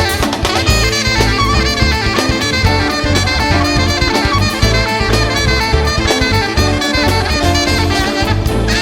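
Jazz music with saxophone and brass over a drum kit and a steady bass line.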